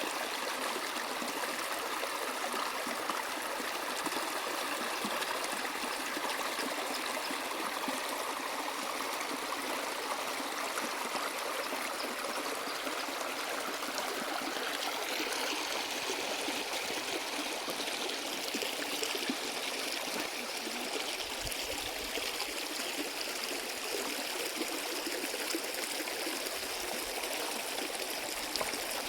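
Stream water running steadily, a continuous rushing sound that turns hissier about halfway through.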